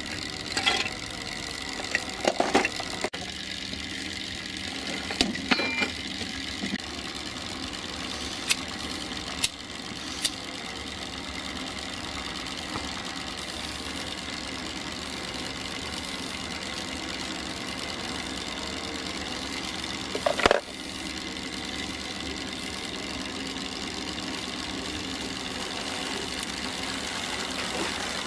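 Scattered metallic clinks and knocks from a miniature steam traction engine's fittings and a shovel being handled while its fire is made ready, over a steady mechanical hum. A louder clatter comes about twenty seconds in.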